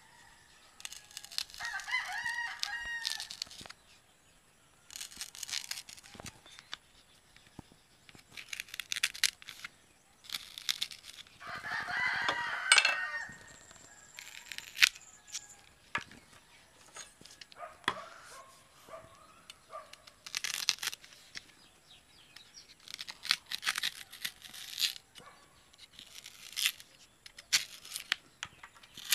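A rooster crows twice, once about a second in and again, louder, around eleven seconds in. Between the crows come short, sharp scraping and cutting strokes of a knife blade working a green banana stalk to bore a hole through it.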